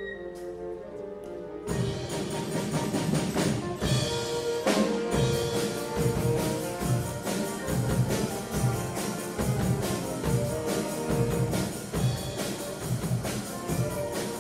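Student wind band playing: soft held wind chords, then about two seconds in the full band comes in with saxophones, trumpets and drum kit, the drums keeping a steady beat.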